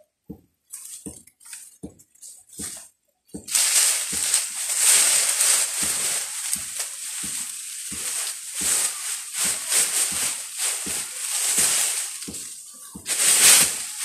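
Dry vines and dead leaves crackling and rustling as they are pulled and snapped by hand, starting about three seconds in after a few soft thumps, with a louder burst near the end.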